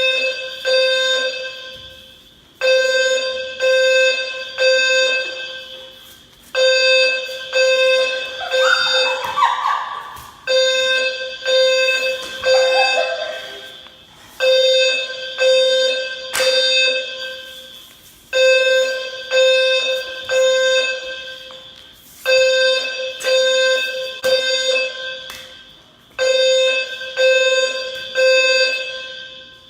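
Fire alarm sounding a chime-like tone in repeating groups of three quick strikes, each group fading out before the next starts about every four seconds. A couple of brief sliding, voice-like sweeps come in near the middle.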